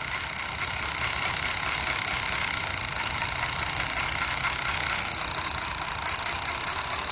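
Battery-operated black plastic toy rifle with its trigger held down, playing its electronic machine-gun sound effect as a fast, steady rattle with a high buzzing tone.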